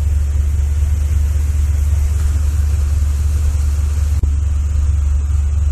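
Rescue truck driving, heard from inside the cab: a steady, loud low rumble of engine and road noise.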